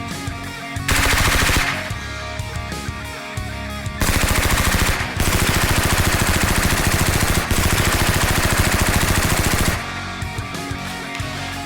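Rapid automatic gunfire in two bursts, a short one about a second in and a long one of nearly six seconds starting about four seconds in, over background action music.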